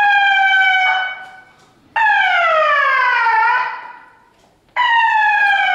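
Siren-like alarm sounding three long falling tones, the signal for the earthquake drill to begin: the first almost level, the second sliding down about an octave about two seconds in, the third falling near the end.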